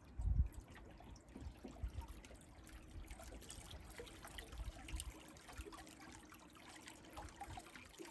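River water lapping and trickling against the side of a small boat, with scattered small splashes and an uneven low rumble.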